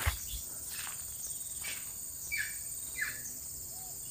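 Short high-pitched calls of macaques, about four in a row, each falling in pitch, roughly a second apart, over a steady high drone of insects.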